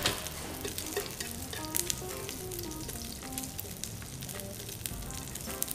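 Slices of octopus and sliced onion searing in oil in a frying pan over a high flame, sizzling and crackling steadily.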